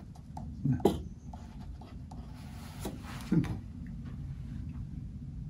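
Brush tip rubbing and scratching lightly on watercolour paper as a small figure is painted, with two short louder sounds about a second and three and a half seconds in, over a steady low room hum.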